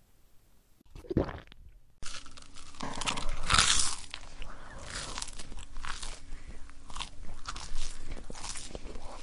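Close-miked mouth chewing crunchy food, with irregular bites and crunches. The chewing starts in earnest about two seconds in, after a single softer sound near one second, and is loudest soon after.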